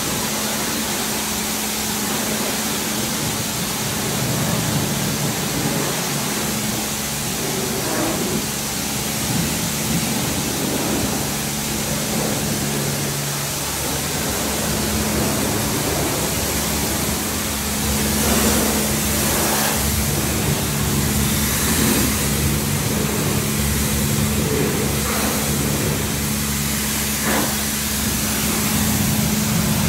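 High-pressure car wash lance running: a steady hiss of spray over the pump's steady hum, which drops out briefly around the middle.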